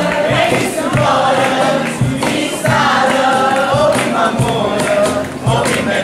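A crowd of people singing together in chorus, over a regular low beat.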